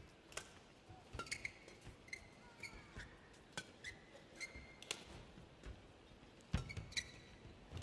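Badminton rally: sharp racket strikes on the shuttlecock about once a second, mixed with short high squeaks of players' shoes on the court.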